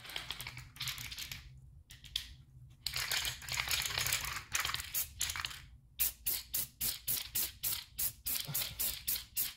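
Aerosol spray paint can spraying black paint: a longer hiss, then quick short bursts at about three to four a second over the second half. A low steady hum runs underneath.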